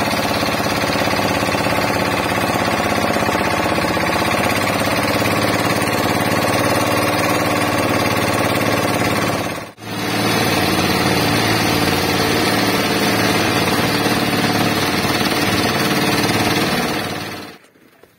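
Engine of a small outrigger fishing boat running steadily while the boat is under way, with a brief break about ten seconds in; it stops shortly before the end.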